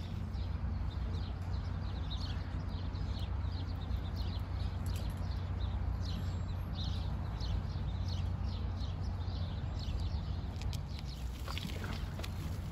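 Steady low rumble under a bird chirping in quick, repeated short high notes, about two or three a second, fading out after about nine seconds; a few faint knocks near the end.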